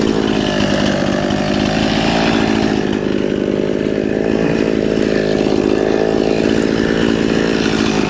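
Chainsaw running steadily at high speed, cutting through a pine trunk.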